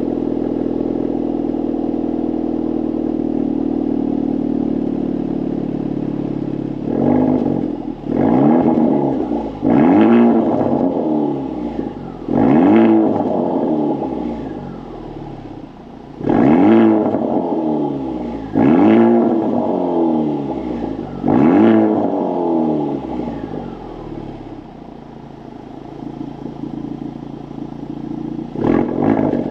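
Honda Civic FK8 Type R's 2.0-litre turbocharged four-cylinder, heard through a Milltek non-resonated race cat-back exhaust, idling steadily and then blipped up in about seven quick free revs, each rising sharply and falling back. It settles to idle again, then starts another rev near the end.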